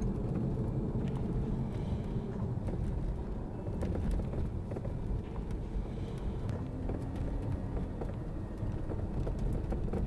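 Road and tyre rumble inside a Volkswagen Passat CC's cabin while driving, with scattered faint clicks and light knocks.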